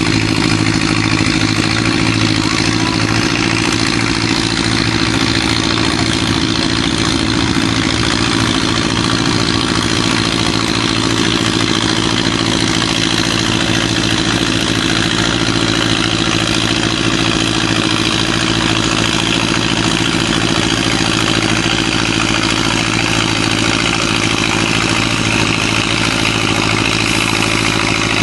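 Antique tractor engine running steadily under load at an even pitch as it pulls a weight-transfer sled down the track.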